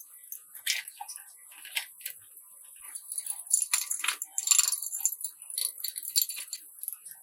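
Irregular light clinks, clicks and scrapes of small hard objects being handled, busiest from about three to five seconds in, over a faint steady hiss.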